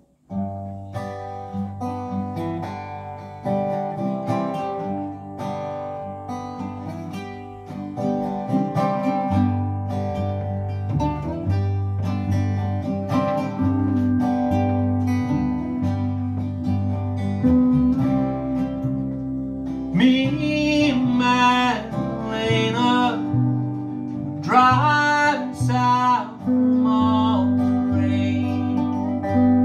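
A small acoustic string band strikes up a song at once: strummed resonator guitar and baritone ukulele over a bowed cello and long held pedal-steel notes. A man's voice sings over the band in the last third.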